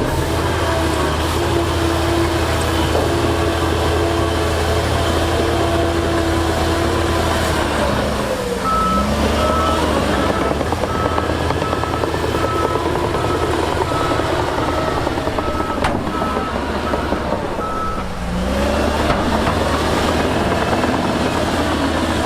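Heavy diesel earthmoving machine running steadily. About nine seconds in, the engine note shifts and a reversing alarm starts beeping a little faster than once a second. It stops about four seconds before the end as the engine note shifts again.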